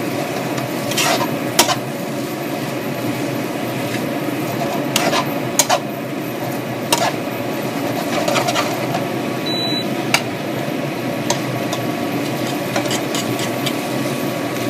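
A spatula stirring vegetables in a frying pan: irregular scrapes and sharp taps against the pan over a steady background noise.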